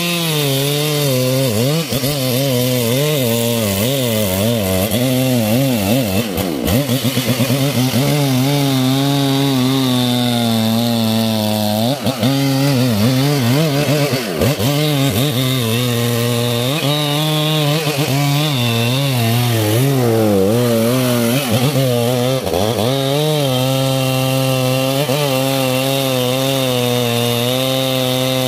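Two-stroke chainsaw running hard as it cuts into the base of a thick tree trunk, the engine's pitch sagging and recovering again and again as the chain bites into the wood, with a few brief dips where the saw eases off.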